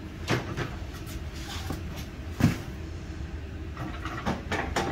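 Metal clanks and scrapes as a rucRak rack is slid down onto the Z-bar adapters of a hitch swing arm: a run of separate knocks, the loudest clunk about two and a half seconds in, with a few more near the end.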